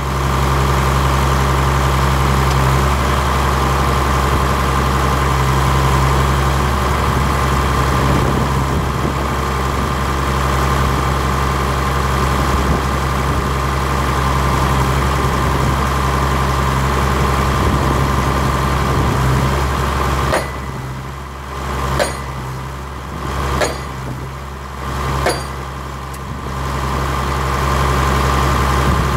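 Tractor engine running steadily to power a hydraulic percussion post driver. Past the middle the engine drops back and four sharp knocks come about a second and a half apart, the driver's hammer striking the top of a composite fence post, before the engine picks up again near the end.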